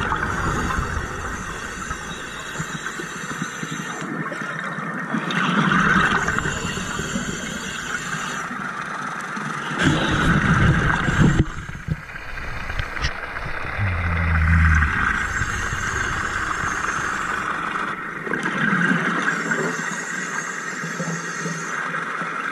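A diver breathing underwater through a compressor-fed hookah regulator: hissing inhalations and deep rumbles of exhaled bubbles, swelling and fading every few seconds.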